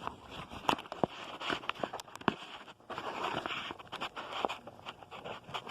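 Hands handling a vacuum cleaner's dust bag and plastic housing, with the motor off: irregular clicks and taps over rustling.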